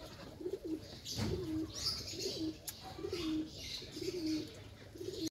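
A bird cooing: short, low calls repeated roughly every three-quarters of a second.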